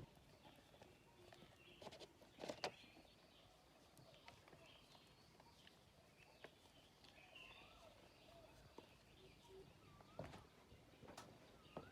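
Near silence with faint bird chirps, plus a few soft knocks about two seconds in and again near the end.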